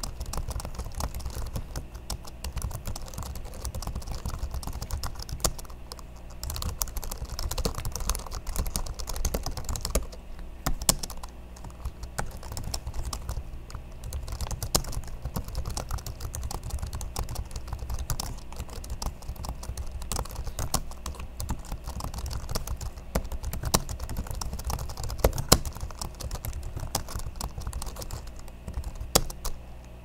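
Steady fast typing on the well-worn keyboard of a 2007 MacBook Pro laptop: a dense run of light key clicks with a few short lulls and an occasional louder keystroke.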